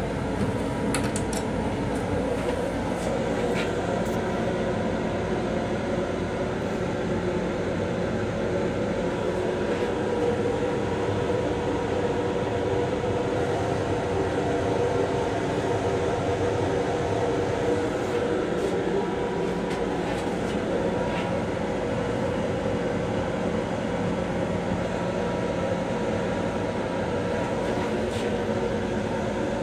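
Steady interior noise of an M7 electric railcar, heard inside its small restroom: a low rumble under a constant hum of several tones.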